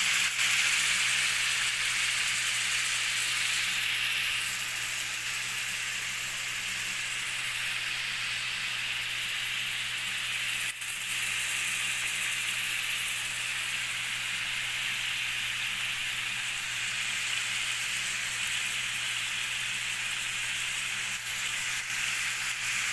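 Coated cutlets frying in oil in a ridged grill pan: a steady sizzle, a little louder for the first few seconds.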